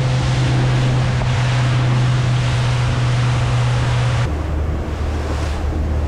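Bay boat's engine running at speed across open water: a steady low engine drone under loud hiss of wind and spray along the hull. About four seconds in the sound changes abruptly to a lower engine note with less hiss.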